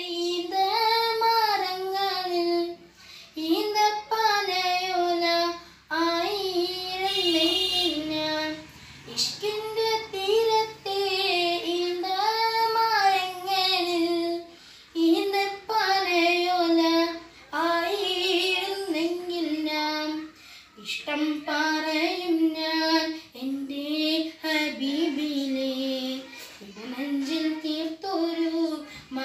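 A boy singing a Malayalam Islamic devotional song solo and unaccompanied, in short melodic phrases with brief breaths between them.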